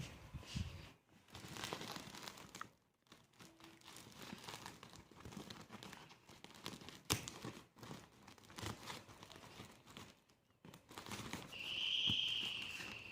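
A sack being folded closed around a packed cardboard carton: irregular rustling and crinkling handling noise. Near the end a steady high squeal comes in and lasts a couple of seconds.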